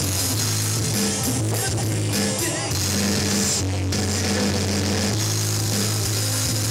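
Live rock band playing: electric guitars and a drum kit, loud and continuous.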